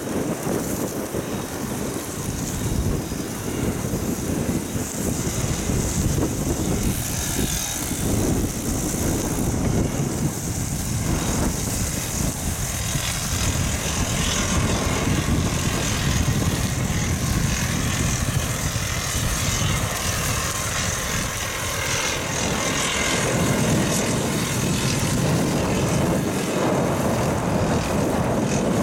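Strong wind buffeting the microphone of a camera on a moving bicycle, a continuous uneven rumble, over a hiss of bicycle tyres rolling on gravel.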